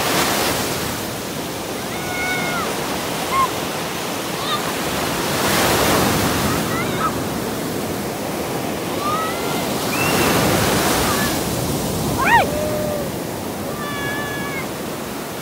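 Sea waves breaking and washing on the shore, swelling every four to five seconds. A few short high calls sound over the surf, and one slides sharply down in pitch near the end.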